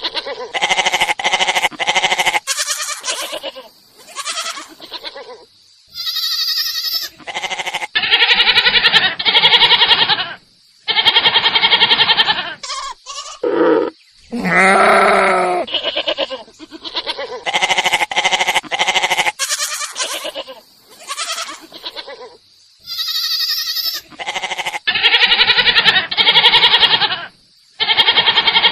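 Goats bleating one after another, a long series of wavering calls each about a second or two long with short pauses between, a few of them higher and thinner.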